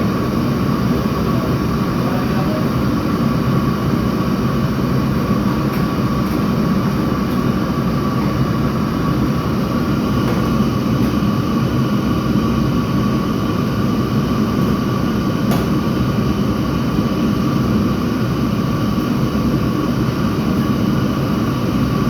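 Steady, loud machine noise: a continuous rumble and hiss with a faint steady whine above it, unchanging throughout.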